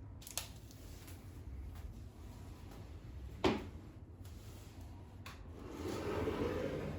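Handling noises: a few light clicks, one sharper knock about three and a half seconds in, then a rustling scrape near the end.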